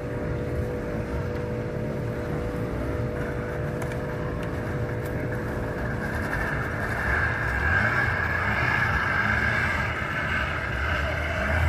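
Outboard motor on a wooden fishing canoe running steadily, a low engine drone that grows louder about seven seconds in.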